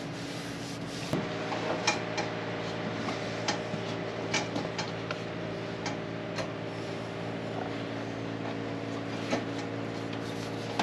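A steady mechanical hum switches on about a second in and keeps running, with scattered light clicks and taps over it.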